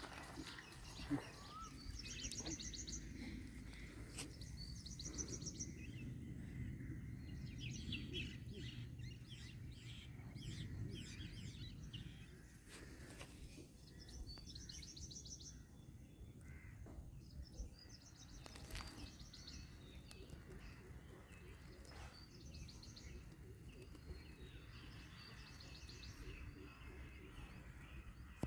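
Birds chirping in short rapid trills, several times over, above a faint low rumble of background noise, with one sharp click about a second in.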